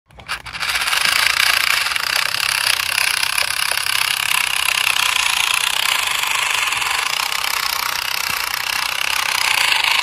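Steady buzzing whir of RC toy trucks' small electric motors and plastic gearboxes driving, starting with a click just after the start.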